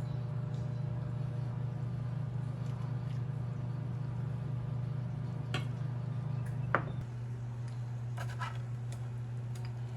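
Steady low hum of a running motor or appliance, with a few light clicks and scrapes. A sharp click comes about seven seconds in, and the hum is a little quieter after it.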